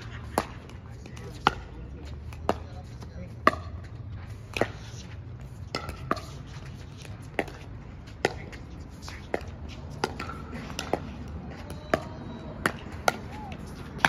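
Pickleball paddles striking a plastic ball in a rally: sharp, hollow pops at an uneven pace of about one a second.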